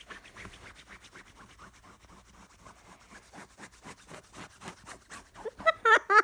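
Fingernails scratching back and forth along a bedsheet, quietly, about five strokes a second. Near the end an umbrella cockatoo breaks into a few short, loud bursts of laughter.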